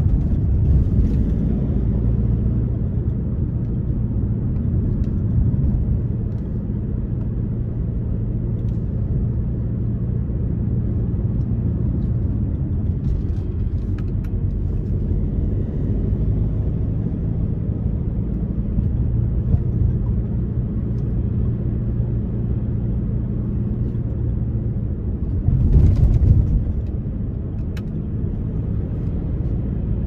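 Car driving along a road: a steady low rumble of engine and tyre noise, with a brief louder swell near the end.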